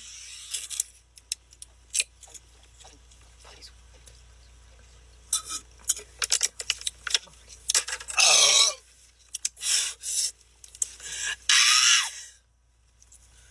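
Shotgunning a can of Monster Energy: gulping and fizz from the punctured can, with small clicks, then a few loud breathy bursts in the second half.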